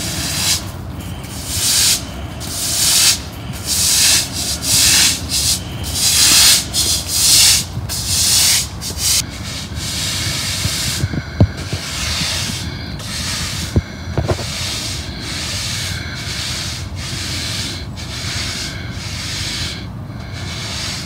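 Push broom scrubbing across wet asphalt in repeated strokes, pushing water over the pavement. The strokes are loud and distinct for the first several seconds, then become quieter and more even.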